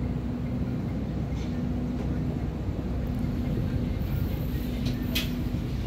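Diesel engines of a standing passenger train idling: a steady hum with one held tone over a low rumble. A brief sharp click comes about five seconds in.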